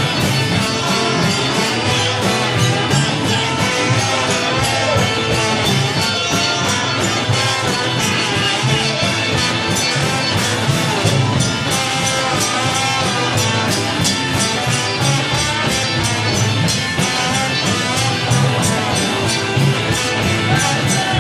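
Rock band playing live, with electric guitars over a steady drum beat.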